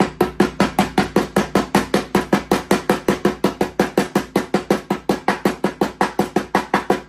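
Rapid, even hammer taps on steel, about six a second, each with a short metallic ring, seating a new sealed ball bearing in the mower deck spindle housing.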